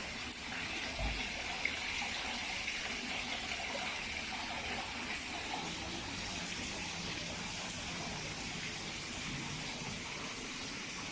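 Small garden waterfall pouring into a koi pond: a steady rush and splash of falling water, with a soft low bump about a second in.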